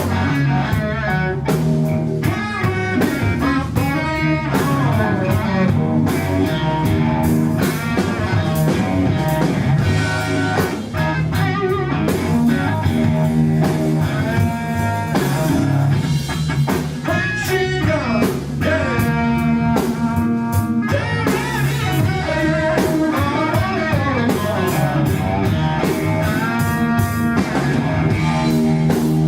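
Live blues-rock played by an electric guitar, bass guitar and drum kit, the guitar taking a solo with bent, gliding notes over steady bass and drums.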